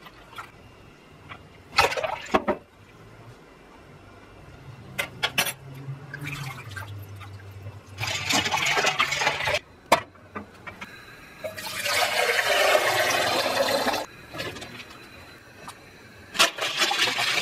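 Water sloshing and splashing as gloved hands stir raw potato slices soaking in a bowl of water, in several separate bouts, the longest lasting about two seconds.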